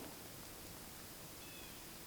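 Faint, still outdoor ambience: one short, high call about one and a half seconds in, part of a call that repeats about every two seconds, over a steady faint high hum.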